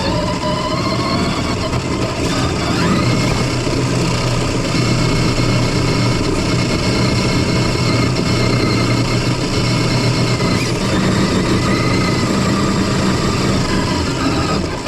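FPV drone's electric motors whining in flight, the pitch rising and falling as the throttle changes.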